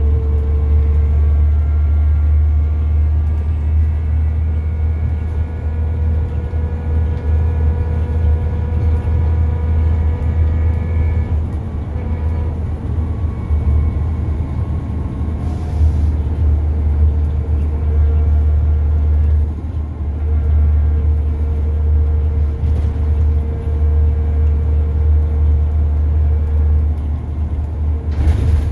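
Scania N94UD double-decker bus engine running hard under load, heard from inside the passenger saloon: a loud, steady low drone with a high whine that climbs slowly, breaks off about eleven seconds in and comes back a few seconds later.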